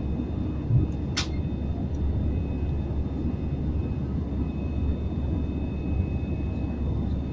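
Airliner cabin noise while climbing just after takeoff: a steady low roar of engines and airflow with a faint steady whine above it. A brief sharp click-like sound cuts through about a second in.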